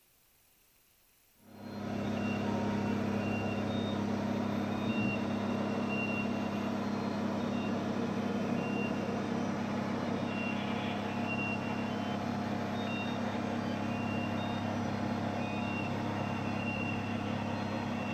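Steady hum and hiss of a crewed submersible's onboard machinery, heard inside the cabin, starting about a second and a half in. Short high electronic beeps come every second or two over the hum.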